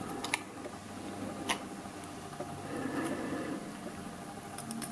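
A few sharp metallic clicks and taps from the brass lock plug and cylinder parts being slid and handled, with a cluster of clicks near the end, over a steady low hum.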